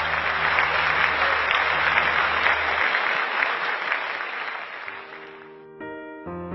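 Audience applauding at the end of a song, with a low held note from the orchestra under it that stops about three seconds in. The applause dies away near the end, and a few piano notes begin.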